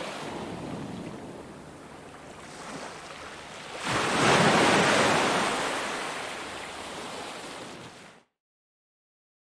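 Ocean surf: waves washing on a beach, with one wave breaking about four seconds in and its wash slowly fading. The sound cuts off abruptly to total silence just after eight seconds in.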